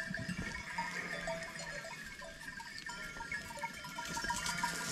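A flock of sheep on the move, with small bells clinking irregularly in short pitched tinks.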